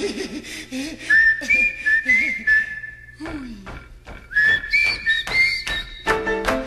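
A whistled tune in two phrases, its notes sliding up into place, over sparse percussion hits.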